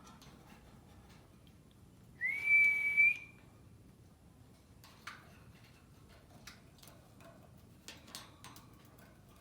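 A single whistled note, about a second long, that rises briefly and then holds steady. A few faint short clicks follow later.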